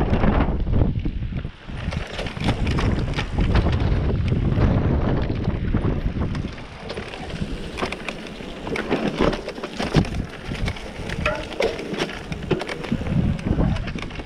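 Mountain bike descending a rough dirt trail: wind buffeting the microphone, with tyres crunching over stones and the bike clattering and knocking over bumps. The wind noise drops about six seconds in, leaving mostly the rattles and knocks.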